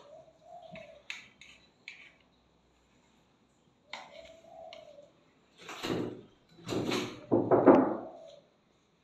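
Handling noises: a few soft clicks early on, a quiet spell, then several louder scraping and rubbing sounds in the second half, the loudest near the end.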